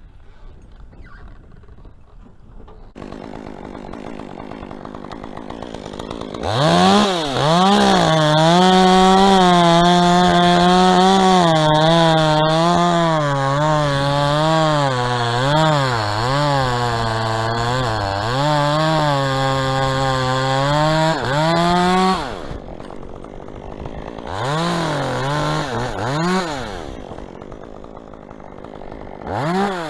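Chainsaw run up to full throttle about six and a half seconds in and held for about fifteen seconds while cutting, its pitch sagging and recovering as the chain loads up in the dead palm wood. It then drops back and is blipped twice briefly near the end.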